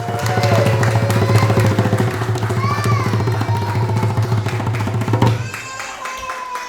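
Music with percussion and a fast, steady beat, starting abruptly. A deep held low note under it stops about five seconds in.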